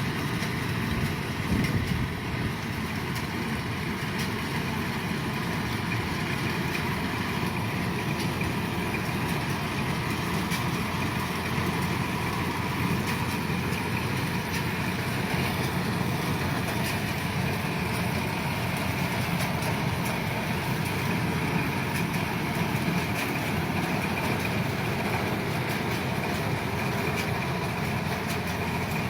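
Kubota DC-105 combine harvester's diesel engine running steadily, a constant machine noise that holds an even level throughout.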